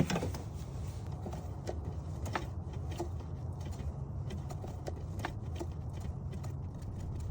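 Scattered light clicks and taps of a hand wrench working a small bolt loose, over a steady low hum.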